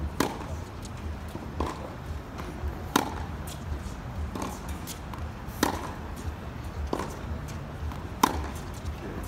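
A tennis ball hit back and forth in a practice rally on a hard court: sharp pops of racket strings striking the ball, about every one and a half seconds. The loudest, closest strikes come about every two and a half to three seconds, over a steady low rumble.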